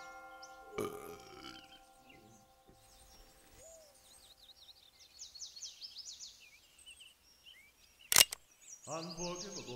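Birds chirping in quick repeated calls as the last chord of music fades, then a single sharp gunshot about eight seconds in. Music starts again just before the end.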